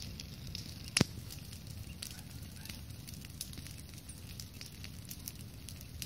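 Large wood campfire burning, crackling with scattered small pops and one loud sharp pop about a second in.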